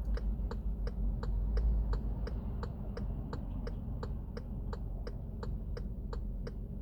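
Car turn-signal indicator ticking evenly, about three ticks a second, over the low rumble of the car heard from inside the cabin.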